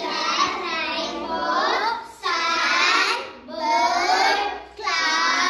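A group of children chanting an answer together in a sing-song voice, in four phrases with short breaks between them.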